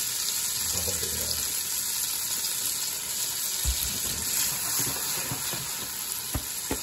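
Broccoli and garlic frying in oil in a hot pan, a steady sizzle as soy sauce is poured in, with a few low knocks midway and near the end.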